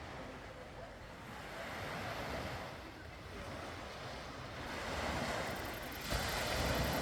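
Sea waves washing onto the shore, swelling and falling back in slow surges, with a stronger wave breaking near the end.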